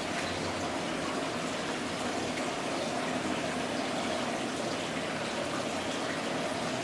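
Running water flowing steadily in an indoor tropical snake exhibit's water feature, an even rushing trickle.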